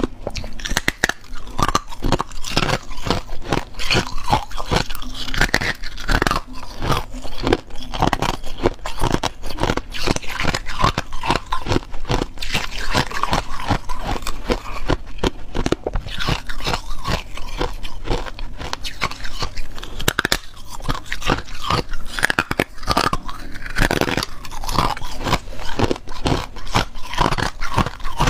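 Close-up crunching of hard ice being bitten and chewed, starting with a thin icicle-style ice stick: a dense, irregular run of sharp cracks and crackles with no pauses.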